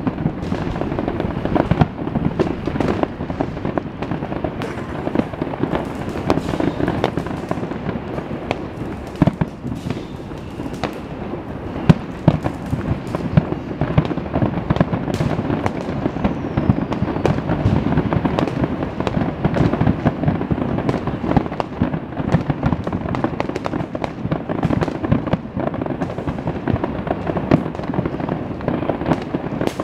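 Fireworks display in full barrage: aerial shells and comets bursting one after another in a continuous rumble and crackle, with many sharp bangs, the loudest about twelve seconds in.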